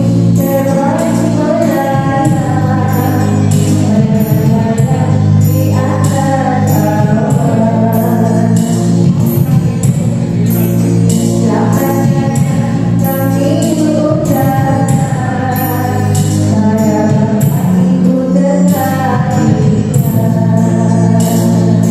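Sholawat (qasidah) devotional singing: voices sing a melody over an electronic keyboard, with hand-struck frame drums (rebana) keeping a steady beat of about two strokes a second.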